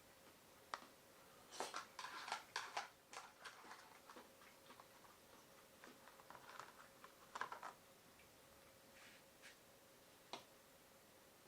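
Scattered light clicks and taps over a quiet room: a quick run of them about two seconds in, then a few more and single clicks near the middle and end.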